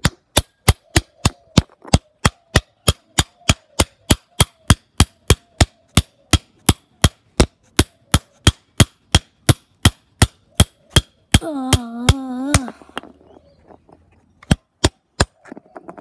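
Brass padlock being struck over and over on hard paving, sharp metallic clacks about three a second. Partway through, the strikes stop for a brief wordless strained vocal sound, then three more strikes come near the end.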